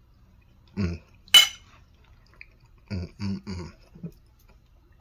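A metal spoon set down on a ceramic dinner plate: one sharp clink with a short ring about a second and a half in. A few short, low, muffled sounds come before and after it.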